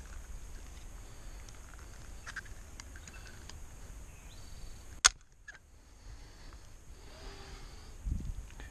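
Low wind rumble and handling noise on the microphone, with a few faint high chirps and ticks in the first half and one sharp click about halfway through.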